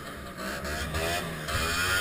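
Two-stroke engine of a 1974 Rupp Nitro 340 vintage snowmobile idling, a steady low drone with a higher whine whose pitch wavers up and down.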